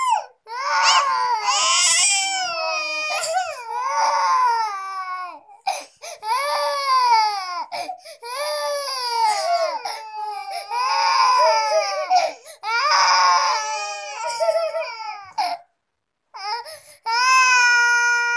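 Two toddlers crying in long cries that slide down in pitch. The cries come in about seven bouts, each broken off by a short pause for breath, with a longer pause near the end.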